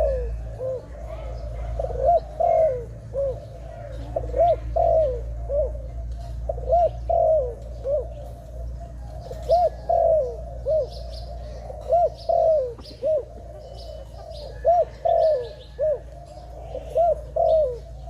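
Zebra dove (Malay dove) cooing: short phrases of three or four quick, clipped coo notes, repeated about every two seconds.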